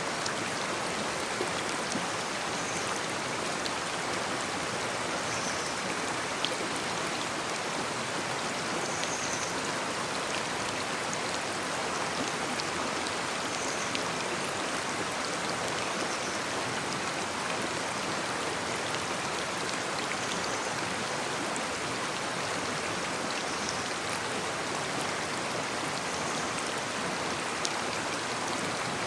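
Shallow brook babbling steadily over stones, an unbroken rush of running water with small splashes and drips ticking through it.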